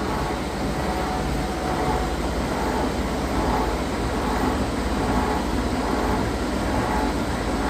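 Fellows gear shapers running, the cutter reciprocating as it cuts internal gears and splines: a steady mechanical clatter with a fast, even low rhythm.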